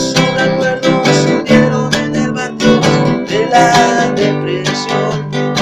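Acoustic guitar strummed in quick, even strokes, an instrumental passage between sung verses of a song.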